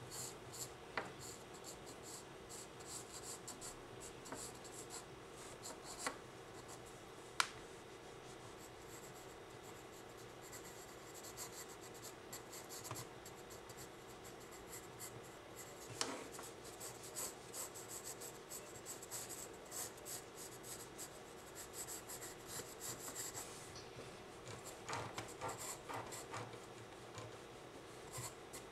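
Pencil scratching and shading on sketchbook paper in quick, uneven strokes, with three sharp ticks along the way and a faint steady hum underneath.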